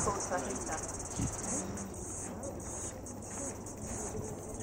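A chorus of insects chirring in a high, finely pulsing drone, with a brief murmur of distant voices in the first second.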